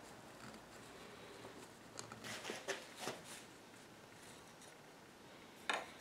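Faint rustles and light clicks of broken wooden chair-rail pieces being worked out from under a woven tape seat. They come in a cluster about two to three seconds in, with one sharper click near the end.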